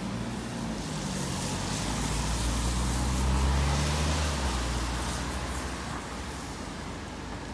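A car passing on the road alongside, its engine hum and tyre noise swelling to loudest around the middle and then fading, over steady traffic noise.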